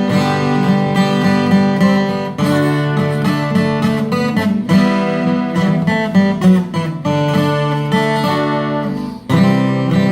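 YAMAKI YW-40 twelve-string acoustic guitar played solo, a melody picked over strummed chords, with a short break about nine seconds in.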